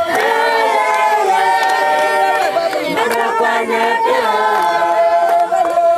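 Babongo villagers singing a welcome song together, several voices holding long notes at once.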